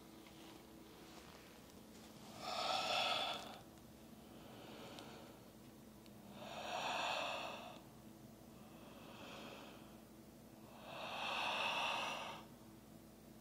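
A woman breathing slowly and audibly while holding downward-facing dog: three long, louder breaths about four and a half seconds apart, with softer ones between them.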